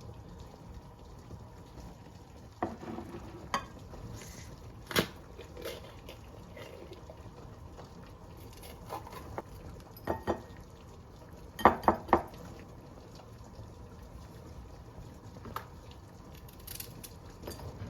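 Kitchen work noises: dishes and utensils clinking and knocking now and then over a low steady background, with a quick run of three sharp knocks about twelve seconds in.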